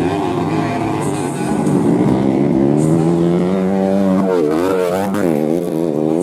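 Modified underbone-motorcycle racing engines running hard on a dirt track, several at once. Their pitch holds fairly steady at first, then rises and falls quickly over a second or so as the throttle is blipped over the bumps.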